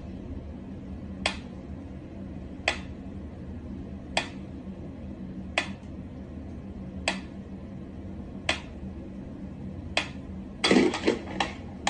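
Mechanical pendulum metronome ticking slowly and evenly, about one sharp tick every second and a half. Near the end a quick flurry of clicks and knocks as a cat paws at the swinging pendulum.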